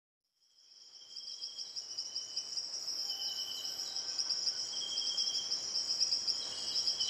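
Chorus of night insects: crickets keep up a steady, high, pulsing trill, with shorter trills coming and going. It fades in from silence over the first second or so.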